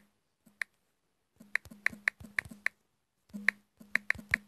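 Touchscreen keyboard key-press sounds, one short click-pop for each key tapped. They come as a single tap, then two quick runs of about five or six taps each, as a word is typed into a phone.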